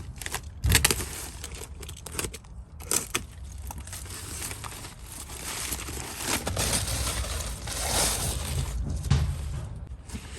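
Packing material rustling and crinkling as plants are unwrapped from a shipping box, with irregular crackles and handling clicks.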